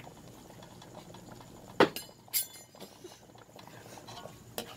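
Kitchen utensils clinking three times against cookware, the loudest about two seconds in, over faint bubbling of a sauce simmering in the pan.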